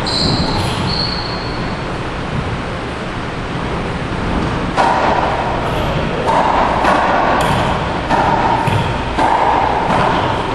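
Racquetball rally in an enclosed court: sharp knocks of racquet on ball and ball off the walls and floor, each ringing in the hard-walled court. The hits come fast and close together in the second half, over a constant background hiss.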